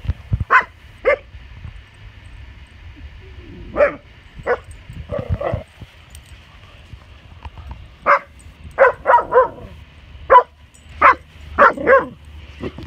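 A dog barking in alarm at an inflatable Halloween figure: about a dozen short, sharp barks in irregular clusters with pauses between.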